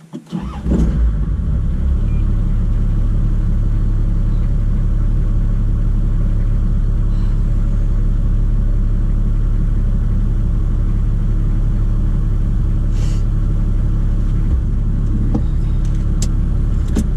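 Four-wheel drive's engine running steadily with a low drone while driving, starting abruptly about half a second in.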